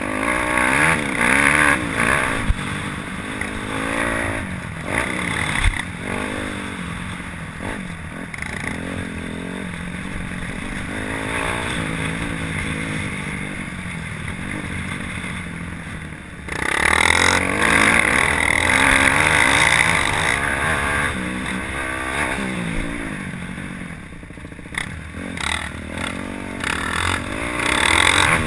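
Yamaha YZ250F four-stroke single-cylinder dirt bike engine under riding load, its pitch rising and falling again and again with throttle and gear changes, heard from the rider's helmet camera with wind on the microphone. It is loudest near the start and again from a little past halfway, with a few sharp clattering knocks.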